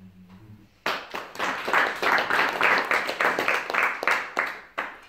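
An audience applauding. The clapping starts suddenly about a second in and stops after about four seconds.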